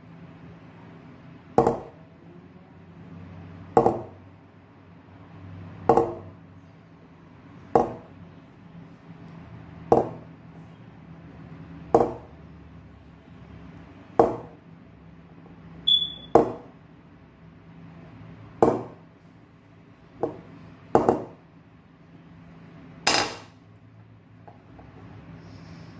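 Slow, evenly spaced knocks from a claw hammer, about one every two seconds, a dozen in all, with a quick double knock past twenty seconds and the loudest, sharpest strike near the end. A brief high ping sounds about sixteen seconds in, over a steady low hum.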